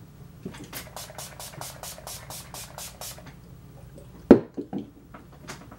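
A pump bottle of makeup setting spray spritzed about a dozen times in quick succession, roughly five short hisses a second. A little after four seconds in there is one loud knock, followed by two softer ones.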